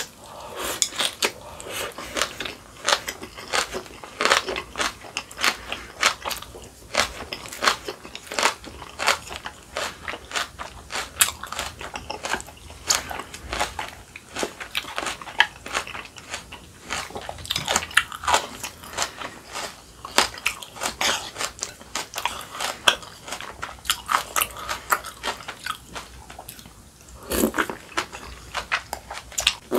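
A person chewing and biting crunchy kimchi with the mouth close to the microphone, a continuous run of crisp crunches.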